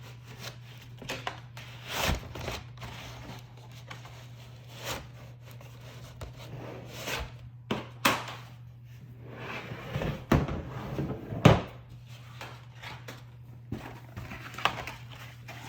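A cardboard product box being opened and the hole saw set's carrying case pulled out and handled: rustling and scraping with scattered sharp knocks and clicks, the loudest about two seconds in and at about eleven and a half seconds.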